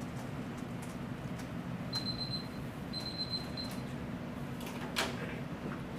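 Quiet room tone with a steady low hum and faint handling noises. Two short high-pitched beeps come about two and three seconds in, and a single sharp click about five seconds in.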